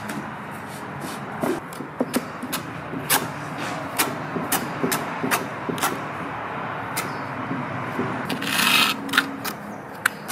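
Notched steel trowel spreading and combing thin-set mortar onto a brick face: repeated sharp clicks and taps of the trowel on the brick, with a longer scrape near the end.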